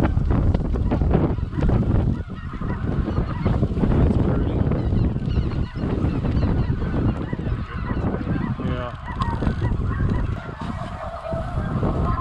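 A large flock of geese calling overhead: many overlapping honking calls, with a low rumble of wind on the microphone.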